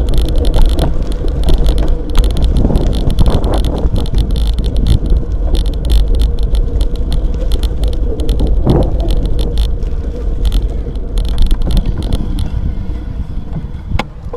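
Riding noise from an action camera mounted on a road bicycle: a heavy rumble of wind on the microphone under a dense, irregular rattle and clicking from the bike and mount over the asphalt. The rattling thins out near the end, and there is one sharp click just before the end.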